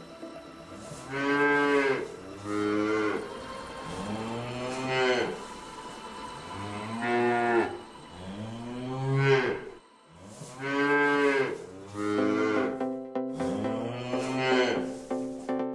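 Cows mooing: a run of long moos one after another, each rising and then falling in pitch.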